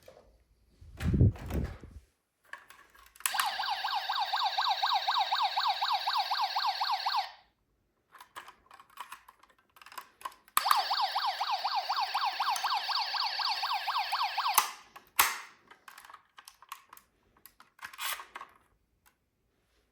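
Toy ambulance's battery-powered electronic siren sounding twice, each burst about four seconds of fast warbling tone, about three seconds apart. A low thump comes just before, with small clicks and knocks of the toy being handled afterwards.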